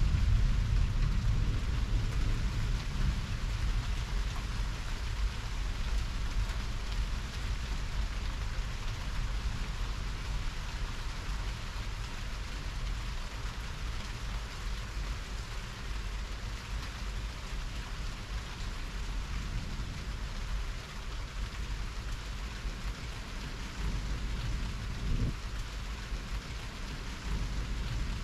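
Steady rain hissing down during a thunderstorm, with a low rumble of thunder dying away over the first several seconds. A faint rumble swells again near the end.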